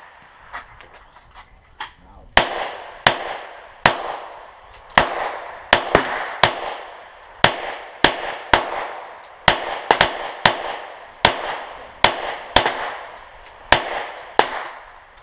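Glock 22 pistol in .40 S&W firing a string of about fifteen rapid shots, roughly one to two a second, each crack followed by a short echo.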